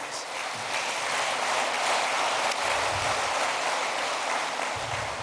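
Applause from a large seated audience, a dense even clapping that builds over the first couple of seconds and tails off near the end.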